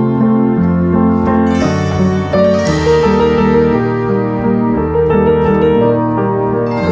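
Background music: sustained keyboard chords, the notes changing about every second.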